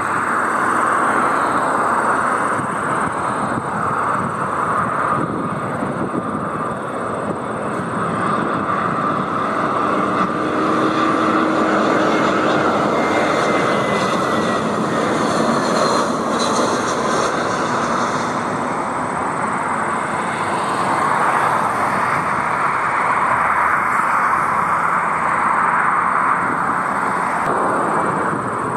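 Narrow-body jet airliner's engines: a steady, rushing jet noise with a faint whine, swelling a little and easing off again more than once.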